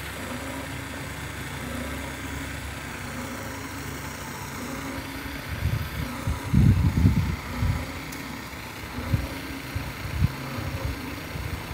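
Steady motor hum, with a cluster of low rumbling bursts on the microphone about halfway through and a few smaller ones after.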